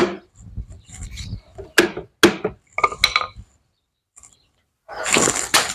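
Glued wooden chair joints being knocked and pressed together: handling rumble, then a few sharp wooden knocks about two to three seconds in, and rustling handling noise near the end.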